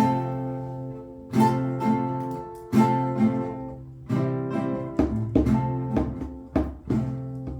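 Acoustic guitar strumming chords, each strum left to ring: slow, spaced strums at first, then quicker strums in the second half.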